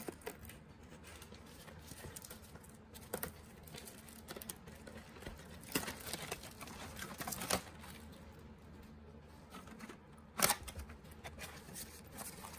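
Faint rustling and light clicks of a trading-card box and its wrapping being handled and opened, with a sharper crackle about ten seconds in.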